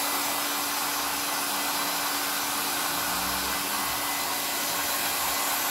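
Hand-held hair dryer running steadily, a constant rush of blown air with a low motor hum, drying wet hair.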